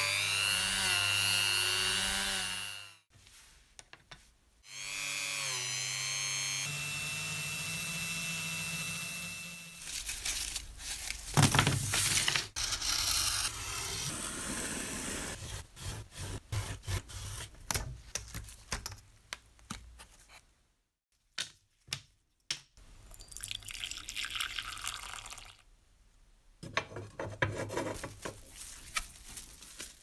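Rotary tool spinning a polishing disc against a steel wire part, its motor whine wavering as the part is pressed on; it stops near three seconds and runs again for about five seconds. After that come irregular scraping and clicking sounds of hand work.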